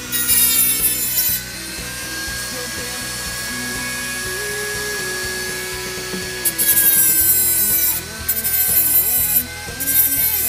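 Small corded rotary tool with an abrasive disc grinding steel on the keyway of a crankshaft nose, dressing down weld laid into the worn keyway. It grinds hard in several bursts, about the first second and a half, again from about six and a half seconds, and near the end, with the motor whining more steadily and quietly between contacts.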